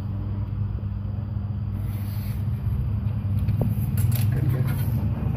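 A steady low background hum. From about halfway in, a utility knife scrapes and clicks as it cuts thin cigarette-box card.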